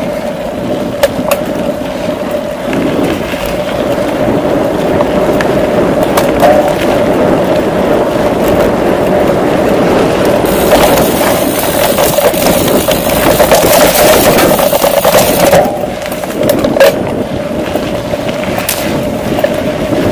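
Mountain bike descending a dirt trail at speed: knobby tyres rolling over dirt and stones, with the bike rattling and sharp knocks from bumps. A harsher hiss comes in about halfway through and lasts several seconds.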